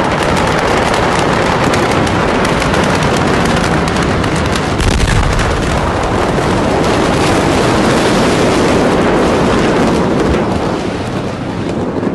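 A large warehouse fire at full blaze: rapid crackling and popping explosions over a continuous loud roar, with a heavier deep rumble about five seconds in.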